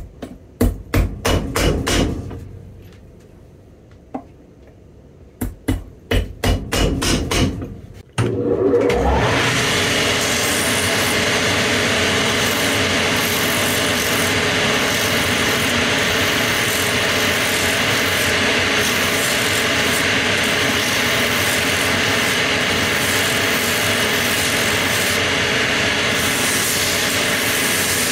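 Cobbler's hammer striking a boot heel in two quick runs of blows. About eight seconds in, a shoe-finishing machine spins up with a rising whine and then runs steadily as the heel and sole edges are sanded on its wheels.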